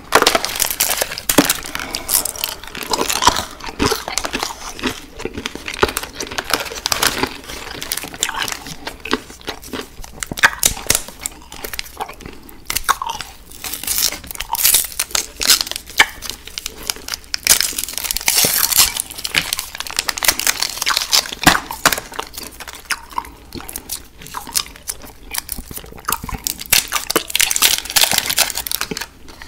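Close-miked chewing and crunching of candy, with wrapper crinkling in between.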